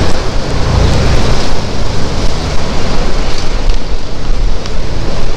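Wind buffeting the camera's microphone: a loud, continuous rush of noise with a heavy, gusting low rumble.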